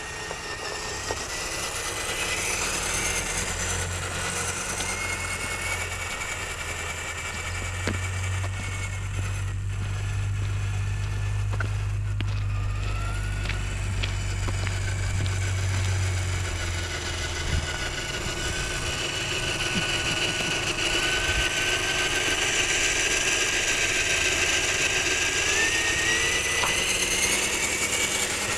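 Radio-controlled scale crawler truck's electric motor and gearbox whining, the pitch sliding up and down as the throttle changes. Under it there is a low steady hum that stops about two-thirds of the way through.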